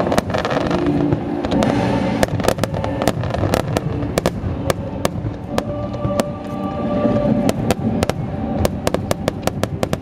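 Fireworks display: aerial shells bursting and crackling in a rapid, irregular series of sharp bangs over a continuous rumble, thickest after about two seconds and again near the end.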